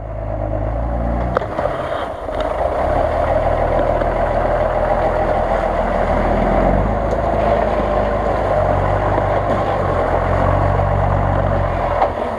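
Modified Jeep Cherokee on oversized mud tyres running its engine steadily under load as it works through a deep mud rut, the engine note rising and falling slightly.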